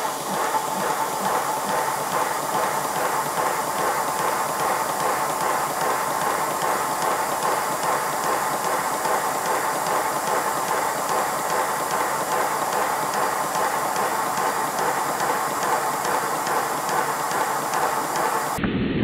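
Live-steam model of the locomotive Lion running in steam on a test stand, giving a rapid, even string of exhaust beats over a continuous hiss of steam.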